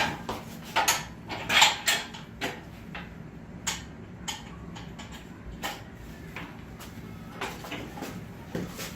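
Scattered metal clanks and clinks of tools and hardware as a load leveler is bolted up and rigged to an engine hoist, the sharpest near the start and about a second and a half in.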